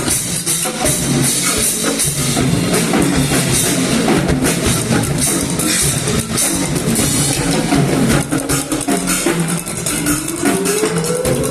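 Percussion trio playing a fast, dense multipercussion passage, with continuous drum strokes. Near the end a rising pitched wail enters over the drums.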